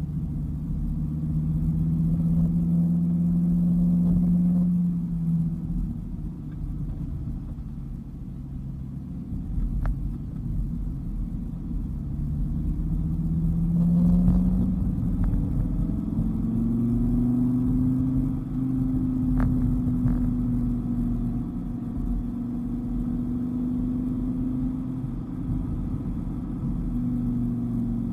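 Dodge Viper's V10 engine running under way with low road rumble. Its note holds steady, fades about five seconds in, then climbs again around twelve to fourteen seconds in and holds at a higher pitch.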